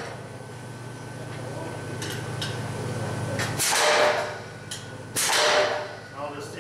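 Power hammer running with a steady low hum, a few light metal clicks, then two heavy blows about a second and a half apart as hot hinge stock is forged between the dies.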